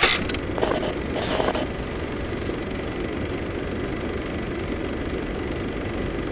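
Logo-intro sound effect: a sudden hit, two short bright bursts in the first second and a half, then a steady low rumble.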